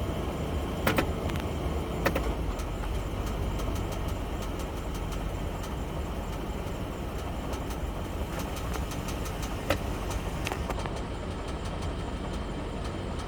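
2004 Toyota Sequoia's 4.7-litre V8 running steadily, with light irregular clicks over the engine sound and a few louder ones. This is the engine noise that the owner began hearing after an oil change.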